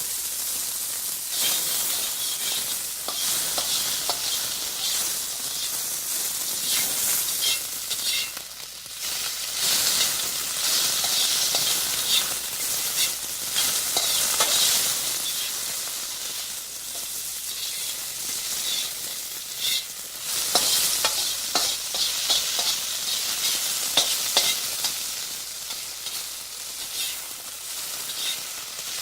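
Food frying in a pan: a steady high sizzle with many small crackles and pops, swelling and easing now and then, with occasional louder clicks as it is stirred.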